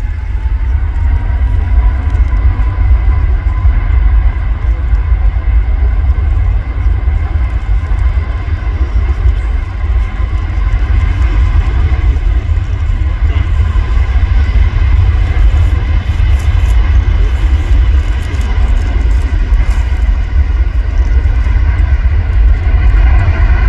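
Airbus A350-1000's twin Rolls-Royce Trent XWB turbofans at takeoff thrust during the takeoff roll: a loud, deep rumble with a steady whine that rises a little in the first couple of seconds.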